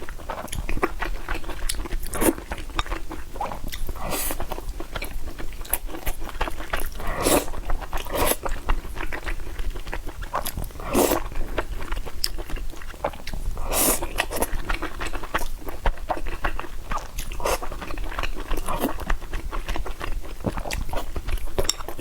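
Close-miked chewing and biting of small sweet-and-sour meatballs: irregular wet crunches and mouth noises, a few louder bites scattered through.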